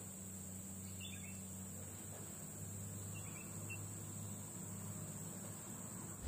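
Quiet outdoor ambience: a faint, steady high-pitched insect drone under a low hum, with a couple of soft bird chirps about a second and three seconds in.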